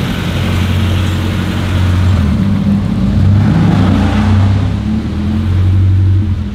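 BMW E30's engine and exhaust running at low revs as the car rolls slowly past, a steady deep note that swells a little in the middle.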